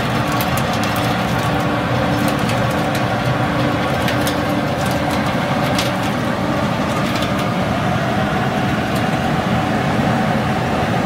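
Mesh belt peanut roasting machine running with a steady mechanical rush and hum. Scattered light ticks come from roasted peanuts dropping off the belt into a stainless steel bin.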